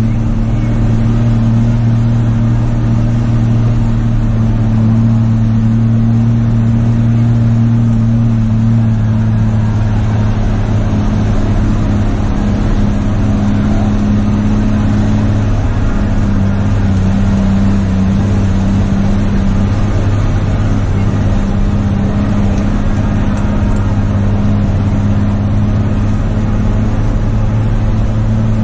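Heavy truck's diesel engine running steadily under load, heard from inside the cab, with road noise from the tyres on a rough dirt road. The engine note shifts slightly a couple of times.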